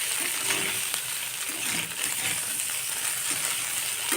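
Potato pieces and onions frying in hot oil in a pan, a steady sizzle.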